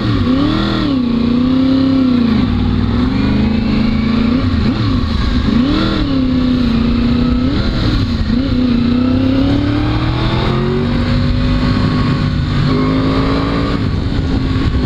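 2011 Yamaha R1's crossplane inline-four with a K-Factory titanium race exhaust, under way. The revs climb and drop several times in the first half, then hold steadier and climb slowly as the bike gathers speed.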